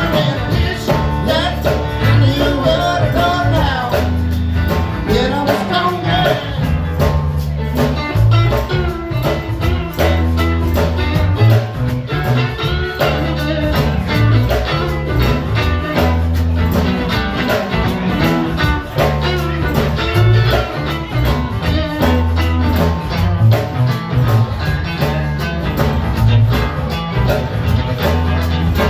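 A band playing with a singer, over a steady drum beat and a prominent bass line. The singing is strongest in the first several seconds.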